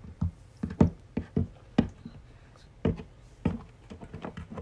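Plastic toy horse figure's hooves tapping on a hard floor as it is walked along by hand: about seven sharp, irregularly spaced taps.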